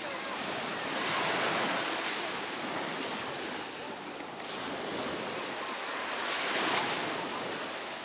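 Small sea waves breaking and washing up on a beach, the wash rising and falling in swells a few seconds apart.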